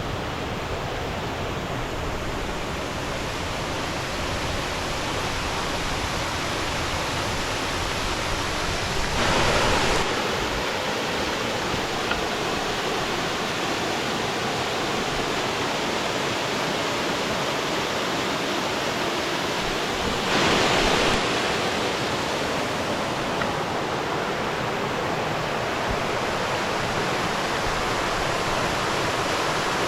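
Steady rush of water from a mountain waterfall and brook, an even hiss with two brief louder surges, about a third and two-thirds of the way through.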